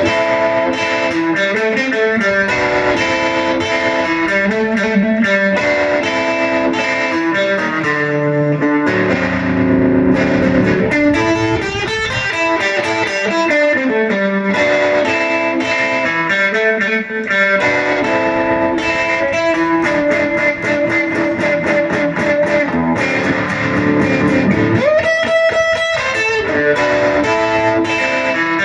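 Custom-built Les Paul-style electric guitar played solo through an amp: continuous single-note lines and chords, with quick runs of notes and a bent note rising in pitch near the end.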